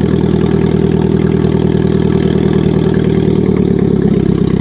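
Old red tractor's engine running steadily with a fast, even firing pulse while the tractor moves slowly, heard up close from the driver's seat. Its note shifts slightly near the end.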